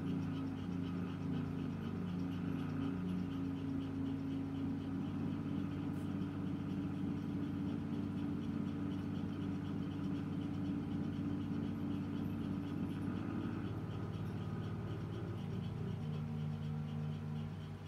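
Background music of low, sustained drone notes that shift to new pitches every few seconds, with a faint regular ticking above.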